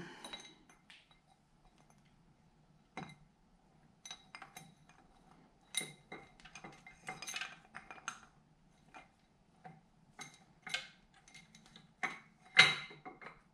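Irregular light metallic clinks and taps as the camshaft and cam chain are handled and set into a Honda CB550's cylinder head, the loudest clink near the end.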